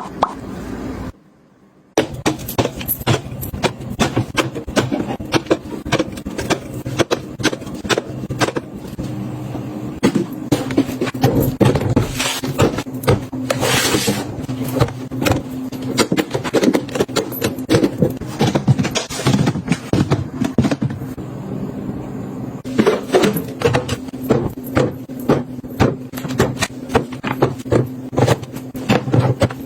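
Dense, irregular clicks, taps and knocks of household items being handled and set down over a steady low hum, with a short quiet break about a second in.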